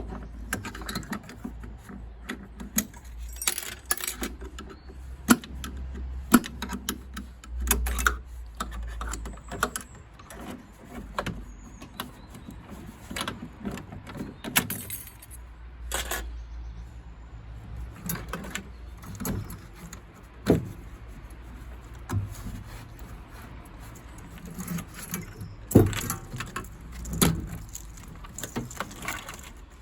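Gas boiler parts being dismantled by hand: irregular metallic clicks, clinks and knocks as retaining pins are lifted out and components are unclipped and pulled free, with a few louder knocks along the way.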